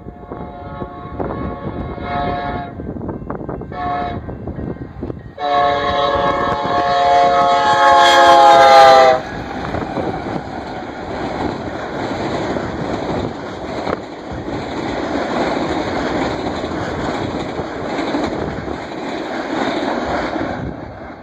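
Union Pacific business train passing, its locomotive air horn sounding a few short blasts and then one long, loud blast that cuts off about nine seconds in. After that the diesel locomotives and passenger cars rumble past on the rails.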